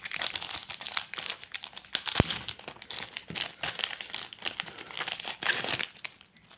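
Plastic wrapper of a Choki Choki chocolate-paste pack crinkling and tearing as it is opened by hand and a pink plastic sticker sachet is pulled out and handled. Irregular crackling throughout, with one sharp tick about two seconds in.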